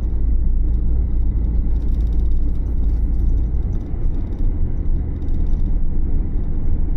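Steady low rumble of engine and road noise inside a moving vehicle's cabin. The deepest part of the rumble shifts about halfway through.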